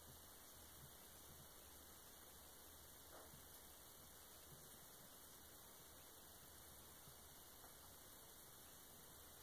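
Near silence: a faint steady electrical hum under low hiss, with a few tiny faint ticks.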